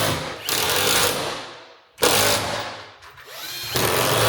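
Cordless drill-driver driving screws into cement board, in several short runs of about a second each.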